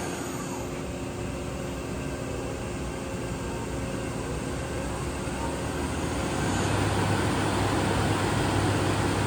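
Steady hum of running machine-shop machinery with a few steady tones, growing louder about six seconds in.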